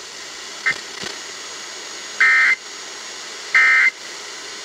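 Emergency Alert System end-of-message signal: two short, shrill bursts of SAME digital data tones, just over a second apart, over a steady hiss. A brief faint blip comes under a second in.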